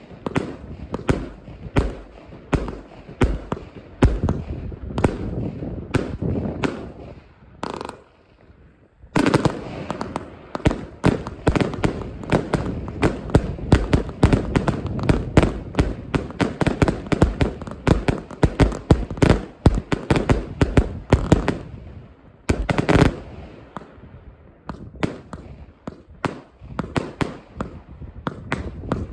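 200-shot compound fireworks battery firing, a rapid string of launch thumps and bursting cracks. The shots pause briefly about eight seconds in, then run as a dense volley for over ten seconds, with a heavy burst a little later and sparser shots near the end.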